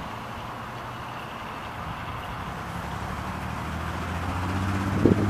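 Passing road traffic: a steady wash of tyre and engine noise, with one vehicle's engine hum building and growing louder over the last few seconds as it comes closer. A brief sharp knock comes near the end.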